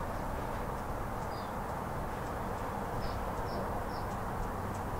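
Steady outdoor background noise, with a few short, high, falling chirps from a small bird scattered through it.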